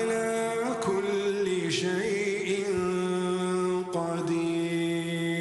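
Male voice chanting Quran recitation in melodic tajwid style, holding long drawn-out notes that slide and turn slowly, with a change of note about a second in and again near the four-second mark.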